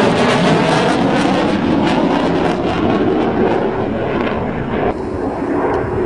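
Loud jet noise from a low-flying fighter jet, a dense steady rush that turns abruptly duller about five seconds in.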